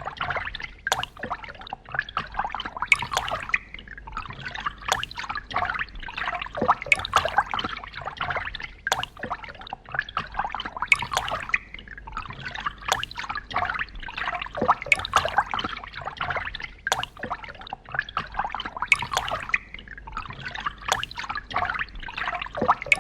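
Phone ringtone made of running, trickling water with drips and splashes, swelling in a loop that repeats about every two seconds.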